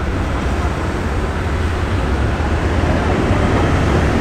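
M3 amphibious rig's engine running steadily: a loud, even deep rumble with a noisy hiss above it.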